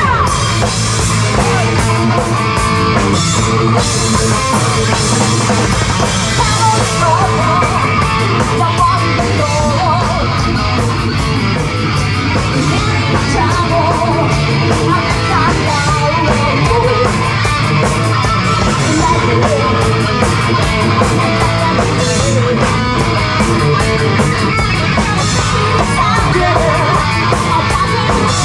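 Live heavy metal band playing loud and without a break: distorted electric guitars, bass and drum kit, with a singer over them.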